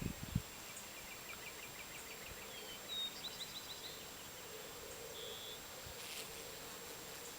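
Faint outdoor ambience with a bee buzzing low and wavering around the flowers. A run of quick high chirps sounds about a second in, and a short high whistle comes near the five-second mark.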